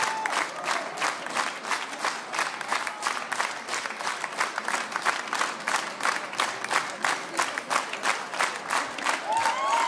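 A standing audience applauding: dense, continuous clapping from a crowd.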